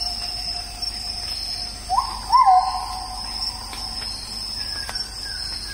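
Insects droning steadily at a high pitch, with a bird's whistled calls. About two seconds in come two quick upward swoops into a long held note that fades, and near the end a run of short falling chirps.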